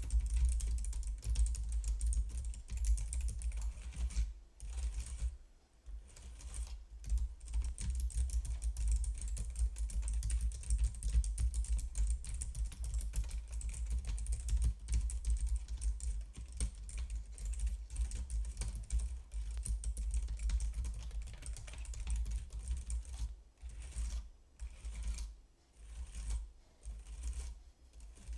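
Typing on a computer keyboard: a fast, dense run of key clicks, pausing briefly about five seconds in and a few times near the end.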